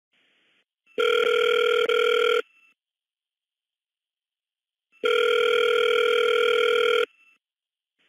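Telephone ringing tone on a recorded phone line: two steady tone bursts, about a second and a half and then two seconds long, roughly four seconds apart.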